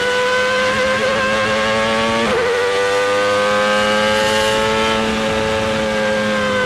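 Race car engine running at high revs as a steady high-pitched whine, with a brief dip in pitch about two seconds in.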